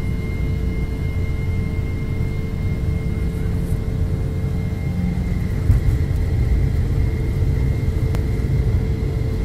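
Jet airliner heard from inside the cabin on the runway: a steady low engine rumble with a steady whine above it, growing slightly louder.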